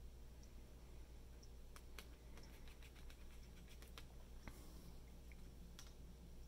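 Near silence: a low steady hum with a handful of faint, sharp clicks and soft brushing from a paintbrush working watercolor on paper.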